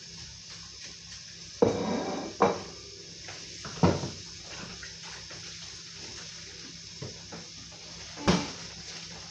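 Dishes clattering at a kitchen sink: four sharp knocks, the first trailing into a brief rattle, over a steady hiss of running tap water.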